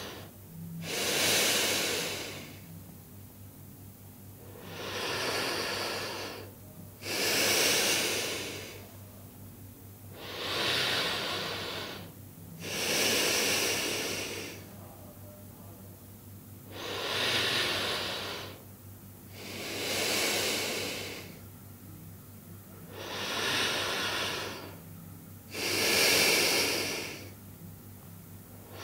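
A person breathing slowly and audibly, about nine breaths in and out in an even rhythm, each a second or two long with short pauses between.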